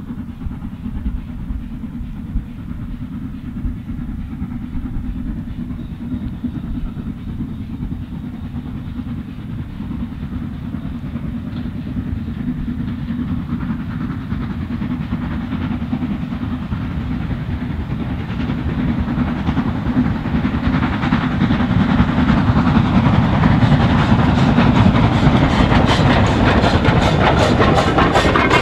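Steam locomotive hauling a rake of passenger coaches as it approaches, growing steadily louder and loudest in the last few seconds, with a fast clatter of wheels on rail joints near the end.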